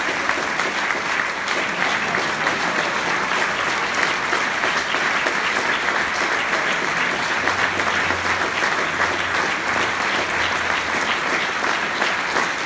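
Applause from the audience and the band: many hands clapping steadily.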